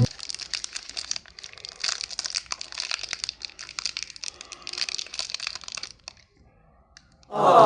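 Close-up crinkling and crackling of something being handled, a dense run of small crackles that stops about six seconds in. Near the end a loud voice sounds, falling in pitch.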